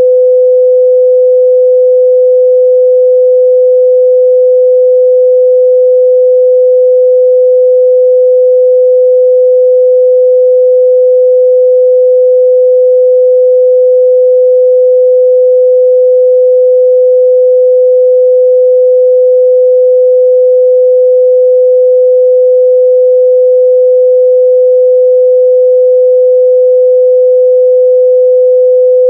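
A steady pure 505 Hz sine-wave test tone, held unchanging at a constant loud level.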